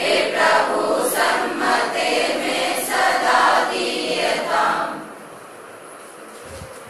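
A roomful of young women singing a prayer together in unison, many voices in a steady chant-like rhythm, ending about five seconds in.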